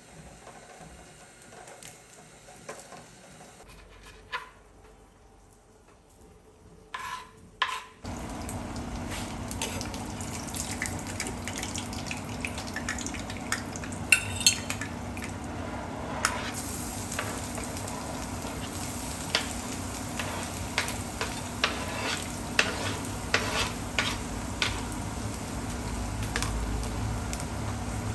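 Food frying in a pan: a few clicks, then a steady sizzle starts abruptly about a third of the way in, with a utensil clicking against the pan as the food is stirred.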